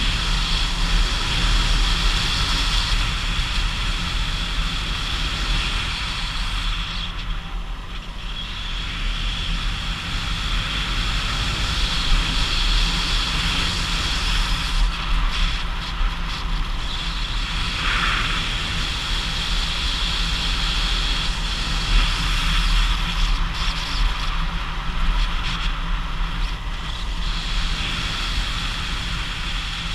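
Steady wind rush buffeting the action camera's microphone, with the drone of the vehicle's engine running beneath it.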